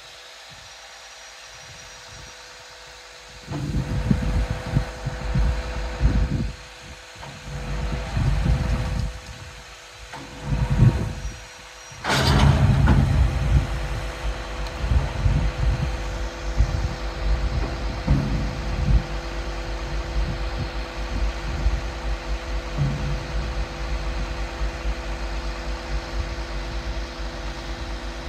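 Volvo EW160E wheeled excavator's diesel engine running with a steady whine, surging several times and then holding steady under load while its hydraulics tip the trailer's box. A single sharp clunk sounds about twelve seconds in.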